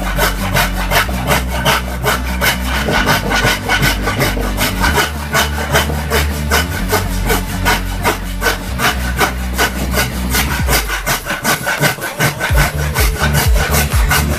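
A 20-inch Hasston Prohex hand saw ripping a wooden board along the grain, in quick, even back-and-forth strokes of the teeth rasping through the wood.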